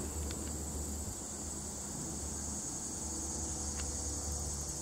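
Steady high-pitched insect chorus, with a low steady hum underneath.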